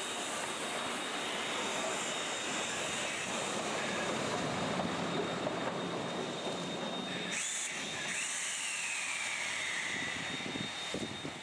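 K-36 narrow-gauge steam locomotive standing with steam hissing off: a steady rushing roar. About seven and a half seconds in, the low part of the roar cuts off suddenly and a thinner, higher hiss is left.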